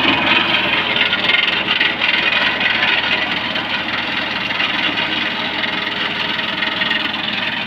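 Mahindra OJA compact tractor's diesel engine running steadily under load, driving a CEL MAK twin-drum rotary mower whose spinning drums are cutting through tall green stalks, a dense, steady mechanical noise.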